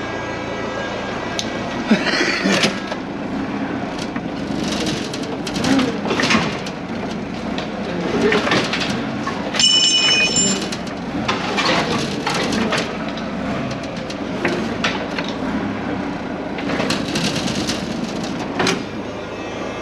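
Forklift engine running steadily under repeated metallic clanks and knocks of the engine block and chain being worked loose from the pickup's engine bay, with a brief ringing metal clang about ten seconds in.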